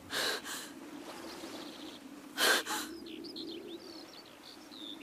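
A woman's breathy gasps, twice, about two seconds apart, followed by small birds chirping over a low steady hum.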